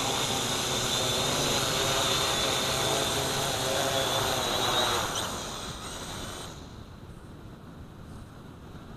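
FPV quadcopter's electric motors and propellers whining steadily with a high tone as it comes in to land, then winding down and stopping about five to six seconds in, leaving only a faint hiss.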